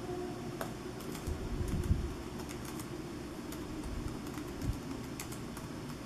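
Irregular key clicks from one-handed typing on the OneGx1 mini laptop's small keyboard, with a few dull low thumps, the strongest about two seconds in.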